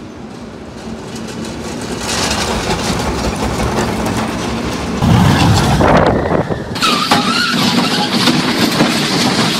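Roller coaster trains running along steel track, heard in a string of short clips: a rumble that swells over the first two seconds, then changes abruptly about two, five and seven seconds in. A short wavering high tone comes about seven seconds in.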